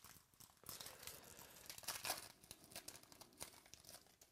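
A Topps Gold Label foil card pack is torn open and crinkled by hand: a string of soft crackles and rustles, loudest about two seconds in.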